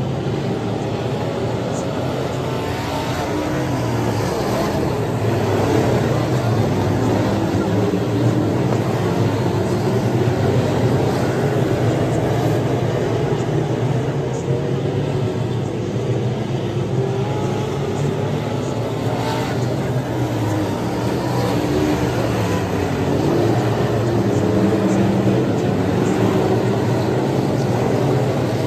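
A pack of USRA limited modified dirt-track race cars running laps, their V8 engines sounding together in a steady drone that swells and eases slightly as the field goes around, heard from the grandstand.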